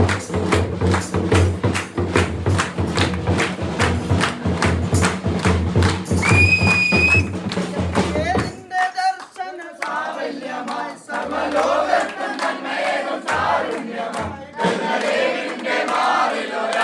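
Carol music with a steady, fast drumbeat and a short high tone about six seconds in. The music cuts off after about eight seconds, and a crowd of voices shouts and sings.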